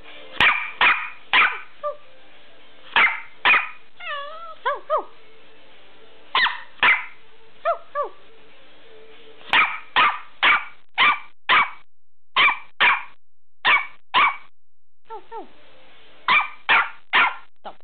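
Nine-week-old Australian Cattle Dog (blue heeler) puppy barking in short sharp yaps, singly and in quick runs of up to six, with wavering whiny yelps about four seconds in and again near eight seconds.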